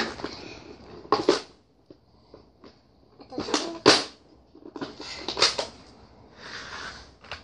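A plastic organizer case of rubber loom bands being handled and unpacked. Its cardboard sleeve rustles and scrapes off, and the plastic lid is opened, giving a string of short rustles, scrapes and clicks with pauses between them.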